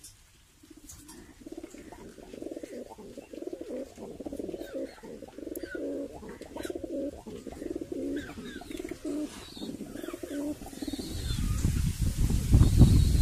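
Red Mukhi pigeons cooing: a long run of repeated low coos. A loud low rumble builds up near the end and drowns them out.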